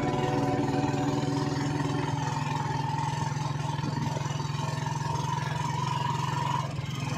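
A vehicle engine running steadily: a continuous low, evenly pulsing drone that drops away just before the end.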